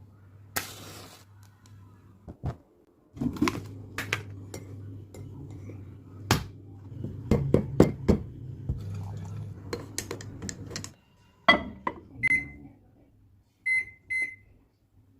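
Kitchen sounds: a steady low hum with scattered clatter and knocks, then the hum stops and four short electronic beeps sound in two pairs, as from an appliance's panel.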